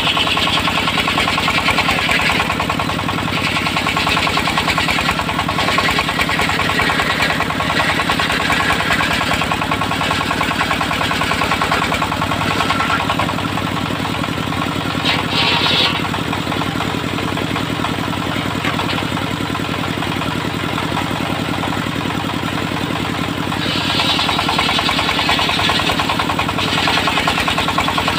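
Engine of a homemade sawmill running steadily with a low, even beat while the saw cuts lengthwise through a log; the higher hiss of the cut swells and fades, strongest near the start and again near the end.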